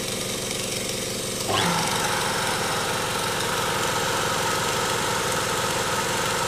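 Makita trim router spinning a 3 mm three-flute end mill at about 10,000 rpm on a DIY X-Carve CNC, milling aluminium in shallow passes: a steady high whine with a hiss of cutting. About a second and a half in, a brief rising whine sounds and the machining gets louder and stays so.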